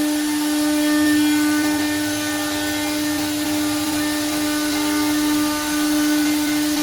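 Router-bit spindle motor of a CNC jigsaw machine running at constant speed, a steady whine with a few higher overtones over a hiss.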